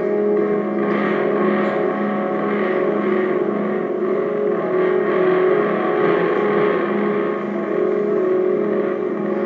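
Live psychedelic band music: a sustained drone of several steady tones with a low note pulsing about twice a second beneath it, in gong-like and guitar timbres.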